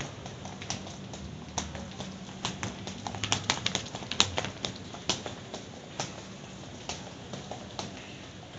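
Footsteps tapping on paving stones about once a second, with a quick flurry of louder taps midway through, over a steady low hum.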